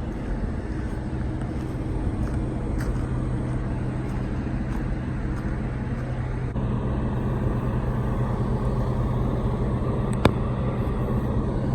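Truck engine idling with a steady low hum, and one sharp click about ten seconds in.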